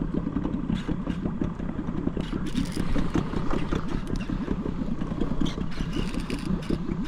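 Boat motor running steadily with a fast, uneven low throb, and scattered clicks and clatter over it.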